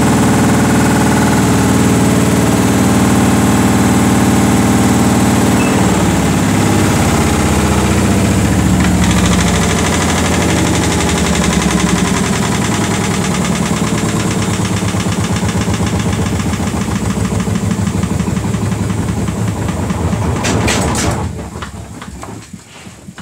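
Samsung WF80F5E0W4W front-loading washing machine winding down from a high-speed service-mode spin of about 1,160 rpm with an extremely unbalanced load. The drum, motor and cabinet run steadily at first, then fall in pitch as the drum slows, with a few knocks and a sharp drop in level near the end.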